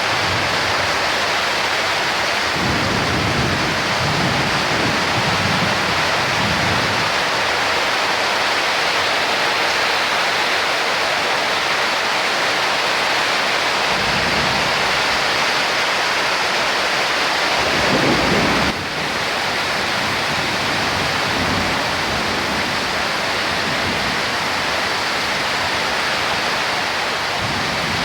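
Heavy rain falling steadily in a summer thunderstorm, with several low rolls of thunder; the strongest comes about two-thirds of the way through.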